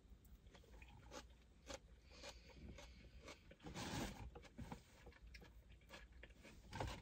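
Faint close-up chewing and mouth sounds of someone eating, with small clicks throughout and a louder rustle about four seconds in. Near the end comes a sudden thump, a bag falling, loud enough to be taken for the table falling.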